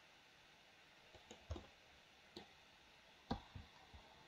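A few faint computer mouse and keyboard clicks, scattered over near silence; the loudest comes a little past three seconds in.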